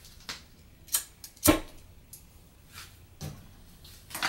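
A handful of separate sharp clicks and light taps while an alcohol stove is being lit, the loudest about a second and a half in.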